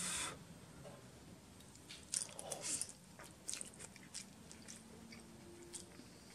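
A person chewing a mouthful of chicken ramen noodles close to the microphone: soft, wet mouth clicks and crackles, in a cluster about two seconds in and again around three and a half seconds.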